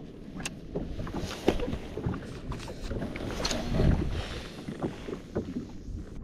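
Water lapping and slapping against the hull of a drifting jet ski, with many short, irregular knocks.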